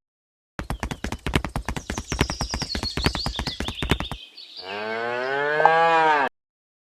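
A cow mooing once, a long call that rises and then falls in pitch. It comes after a rapid run of clicks that lasts about three and a half seconds, with a thin high tone sliding downward over them.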